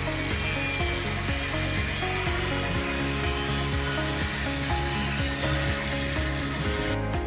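Background music with a steady beat over the hiss of a Makita GA459 1900-W angle grinder grinding or cutting metal. The grinding noise cuts off abruptly near the end.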